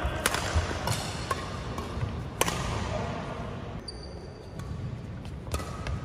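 Badminton rally: several sharp smacks of rackets striking the shuttlecock, the loudest a quarter of a second and about two and a half seconds in. A brief high squeak of a shoe on the wooden court floor comes about four seconds in.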